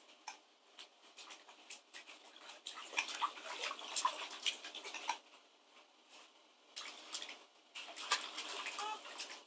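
Water splashing and sloshing in plastic bath buckets as babies move and paddle their hands in it, in irregular small splashes, busiest a few seconds in and again near the end. A few short baby vocal sounds come with the splashing.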